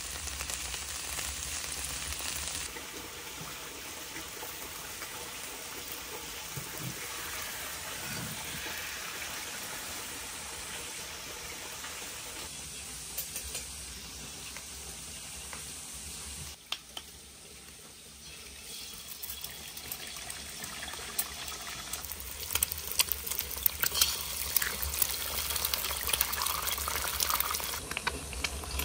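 Yellow beans sizzling as they fry in a black iron pan: a steady hiss. About halfway through the hiss drops quieter, and later a run of sharp, light clicks and taps comes in.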